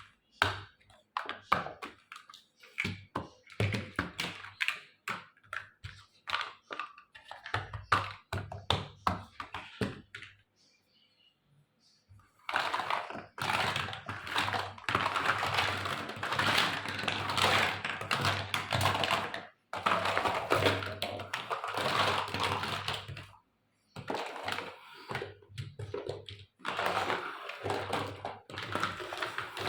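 Small plastic toy kitchen pieces and their packaging being handled: a run of light clicks and taps, then long stretches of dense crackling rustle from the plastic wrapping.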